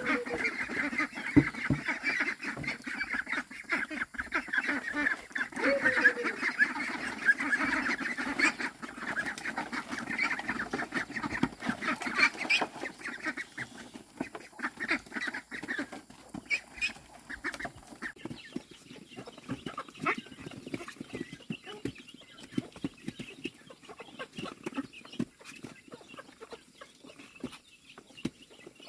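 A flock of farm poultry calling: many short calls overlap densely for about the first eight seconds, then thin out to scattered calls.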